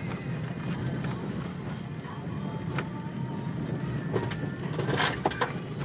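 Car engine and tyre rumble heard from inside the cabin while driving slowly over a rough gravel lane, with scattered clicks and knocks, the loudest a little before the end. Music plays over it.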